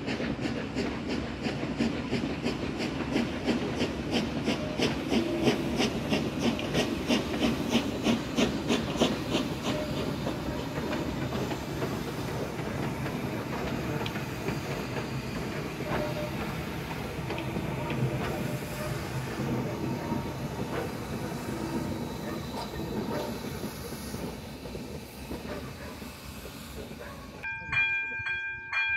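Steam-hauled passenger train passing: a rumble of rolling coaches with an even clatter of about four beats a second, fading as the steam locomotive goes by with a hiss of steam. Near the end a steam locomotive whistle sounds, one steady multi-note chord.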